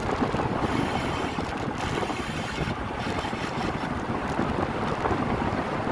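Steady rush of wind buffeting the microphone of a camera on a moving bicycle.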